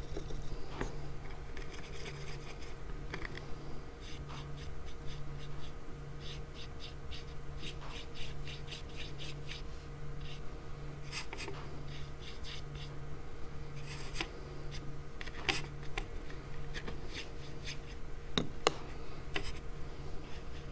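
Paintbrush scrubbing and dabbing on watercolor paper in quick runs of short scratchy strokes, with an occasional sharper tap. A low hum pulses underneath about one and a half times a second.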